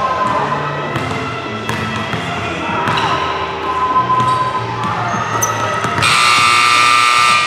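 Basketballs bouncing on a gym floor with voices in the hall, then a scoreboard buzzer sounding loudly for about a second and a half near the end.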